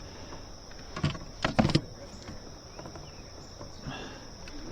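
Steady high-pitched chorus of crickets and other insects, with a short clatter of a few sharp knocks about a second in.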